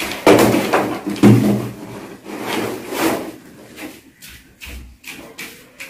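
A flat-screen television being lifted off a tiled floor and carried: bumping and rubbing of the set while it is handled, loudest in the first second and a half, then fainter, scattered knocks.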